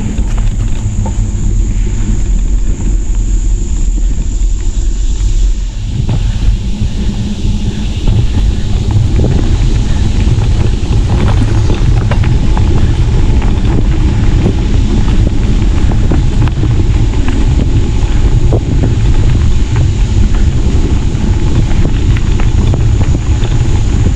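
Wind buffeting the microphone of a camera on a moving bicycle: a loud, steady low rumble with scattered faint ticks.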